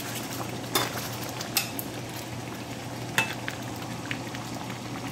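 Chicken curry in coconut milk sizzling steadily in a stainless-steel pan while a slotted metal spoon stirs it, clinking sharply against the pan three times.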